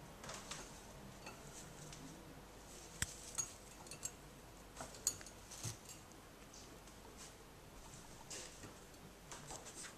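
Faint, scattered clicks and light metallic clinks of a cockatiel moving about on the wire-grate platforms and perches of its play stand, a few sharper ticks in the middle.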